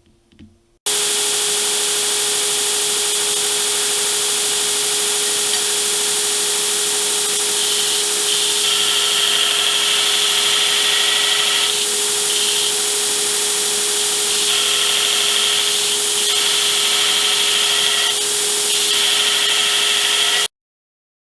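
Plasma torch cutting steel plate: a loud, steady hiss from the arc and air, with a steady hum underneath. It starts suddenly about a second in and cuts off sharply near the end.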